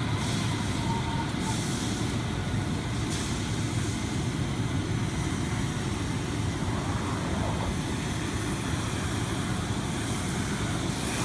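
A fire engine's motor running steadily with a low rumble, with a steady hiss over it.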